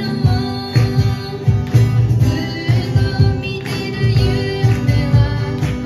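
Live acoustic music: two acoustic guitars strummed over an even cajón beat, with a girl singing into a microphone.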